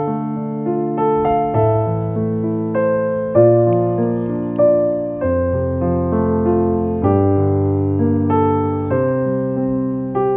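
Background piano music: slow, soft chords over held bass notes.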